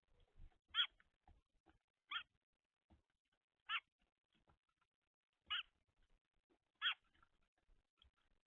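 A bird at the feeder giving short, high, single chirps, five in a row about a second and a half apart.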